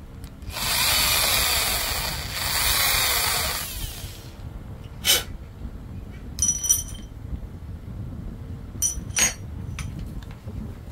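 Handheld electric drill running in two bursts of about a second and a half each. A few sharp metallic clinks follow as small metal parts knock together.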